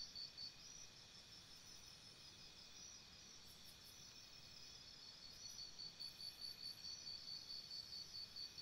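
Faint crickets chirping in a quick, regular pulse, strongest about six seconds in.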